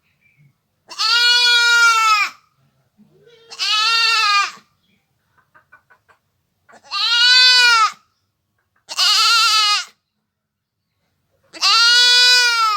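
Domestic goat bleating: five long, wavering calls, each about a second or more, with short pauses between them.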